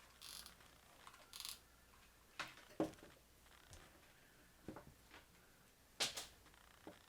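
Faint handling noises of cardboard toilet paper rolls: soft rustles near the start, then a few scattered taps and clicks as the rolls are handled and set in place, the sharpest a little before three seconds in and again about six seconds in.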